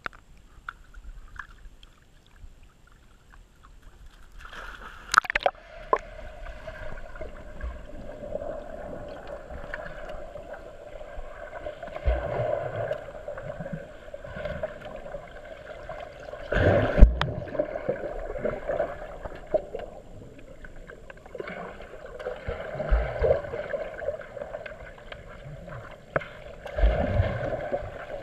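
A dog swimming in a pool, heard through a camera's waterproof underwater housing: muffled splashing and gurgling with a few louder splashes.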